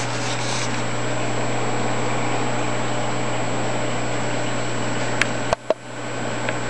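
Steady hum and rushing hiss of aquarium pumps and filtration running, with a few sharp handling clicks on the camera about five seconds in and near the end.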